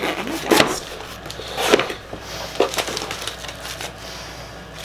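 A cardboard box being opened by hand: rustling and crinkling of cardboard and packing, with a few sharp cracks.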